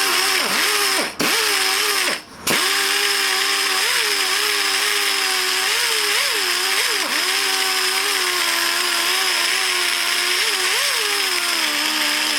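Die grinder running and grinding metal off part of a 1938 Chevrolet inner door handle mechanism so it fits freely in its hole. Its whine dips in pitch again and again as it bites into the metal, and it stops briefly twice near the start.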